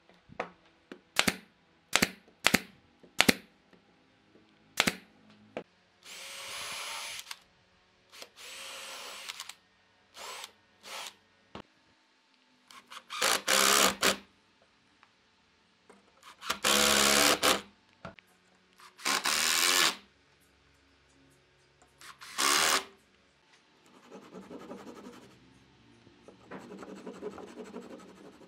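Cordless drill driving screws into a solid wood table leg in about six bursts of one to two seconds each, after a quick run of sharp taps on the wood. Near the end, a hand saw cuts the wood with softer back-and-forth strokes.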